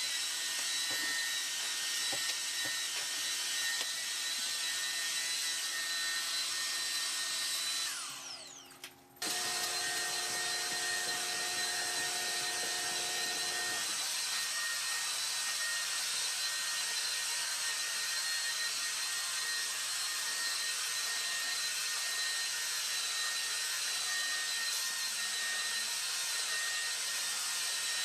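Bissell CrossWave Pet Pro wet-dry floor cleaner running with a steady motor whine. About eight seconds in it winds down and dies away, then it is back at full level a second later.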